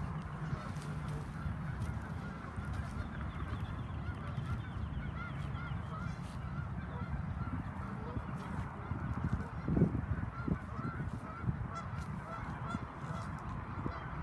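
A flock of geese honking, many short overlapping calls repeating throughout, over a steady low rumble. A single low thump comes about ten seconds in.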